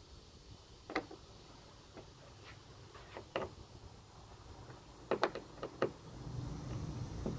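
Sparse sharp clicks and taps of plastic canopy fittings being handled: a canopy pole's ball connector worked in its deck hub on a plastic kayak, with a quick run of clicks about five seconds in.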